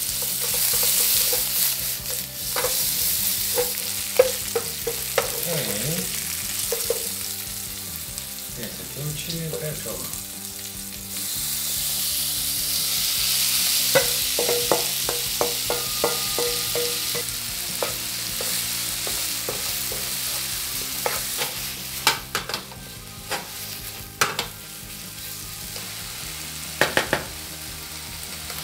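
Minced pork sizzling in a nonstick frying pan, stirred with a wooden spatula that scrapes and knocks against the pan. About halfway through, chopped kimchi, tomato, onion and potato are tipped in and the sizzle swells, and the stirring goes on.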